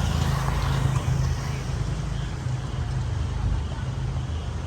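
Steady low rumble of a motor vehicle running, with a faint hiss above it.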